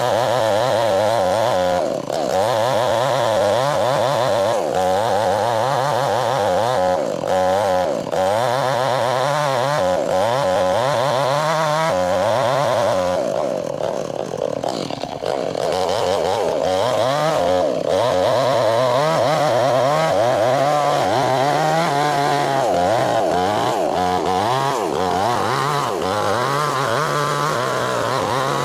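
Chainsaw running under load, cutting a log lengthwise to split it. The engine pitch wavers up and down as the chain bites, and the saw eases off briefly about halfway through before cutting on.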